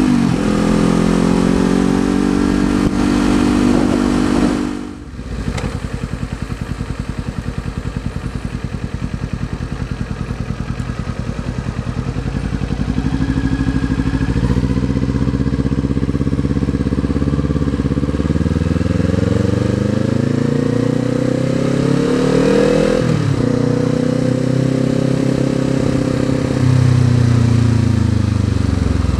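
2019 Kawasaki Z400's parallel-twin engine with an Akrapovič exhaust, heard from the rider's seat: steady cruising at first, then after a break about five seconds in, a pulsing idle before pulling away. From the middle on, the engine pitch climbs and falls again several times as the bike accelerates through the gears.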